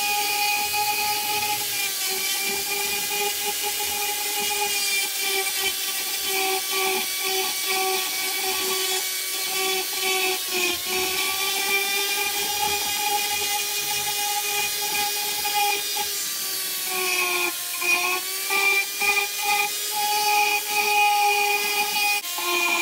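Foredom flex-shaft rotary tool spinning a burr against catalpa wood: a steady high whine with grinding of the burr on the wood. The pitch dips briefly when the burr is pressed into the cut, about ten seconds in and again around seventeen seconds, and the sound gets choppier in the last few seconds.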